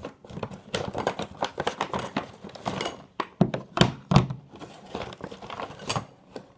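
A bag rustling and crinkling as it is rummaged through, with a few knocks as the slime containers inside are handled.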